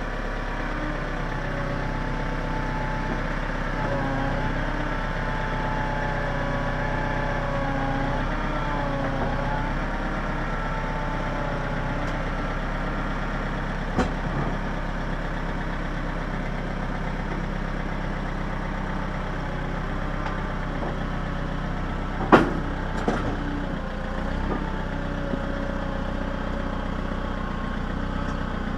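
John Deere 110 backhoe's diesel engine running steadily, with a wavering higher tone over it in the first third. Sharp metallic clanks sound once about halfway through and twice more, louder, a little later.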